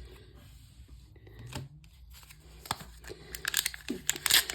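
A trading card pack's wrapper being torn open and crinkled, the crackling starting about three seconds in after a few light handling clicks.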